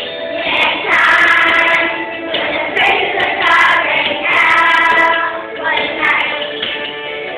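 Children singing together as a choir over a musical accompaniment, in sung phrases with short breaks between them.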